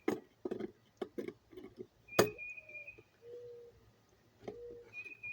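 Screwdriver undoing a screw in an electric kettle's plastic housing: scattered small clicks and knocks, one sharp click about two seconds in, and brief squeaks as the screw turns.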